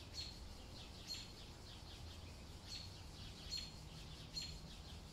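Faint birds chirping: about five short, high calls spaced roughly a second apart, over a low steady hum.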